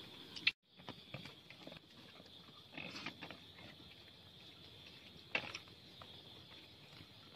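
Faint, steady high-pitched hum of night insects, with a few soft clicks and rustles from eating rice by hand and chewing.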